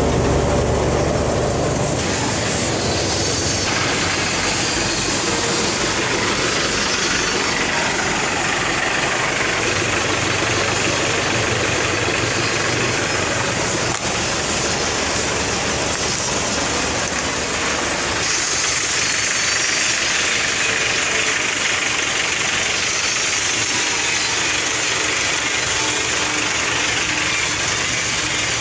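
An engine running steadily, with a hiss over it; the sound changes abruptly a few times where clips are cut together.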